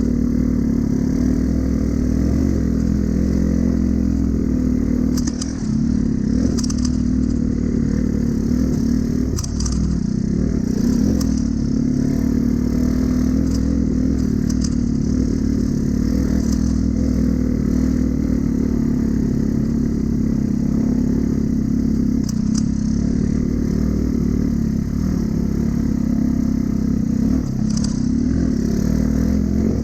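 Honda Cub motorcycle's small single-cylinder engine running steadily while riding, with occasional clicks and rattles from the bike over a rough track.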